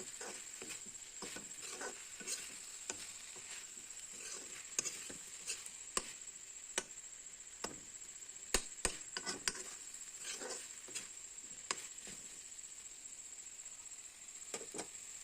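Faint, irregular taps and clicks of a spatula against a kadai as chicken pieces are stirred in it. A steady faint high-pitched whine sits underneath.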